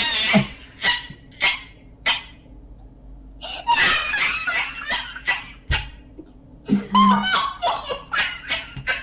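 A man laughing hard in bursts, breaking into a run of short quick laughs, about three a second, near the end.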